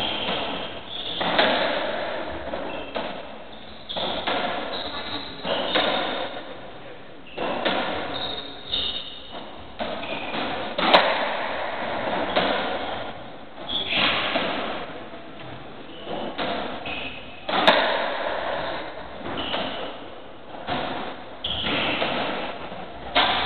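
Racketball rally: the hollow rubber ball struck by rackets and hitting the court walls and floor, a hit about every second or two, each echoing around the enclosed court, with two especially sharp cracks about a third and three-quarters of the way through. Trainers squeak briefly on the wooden floor between shots.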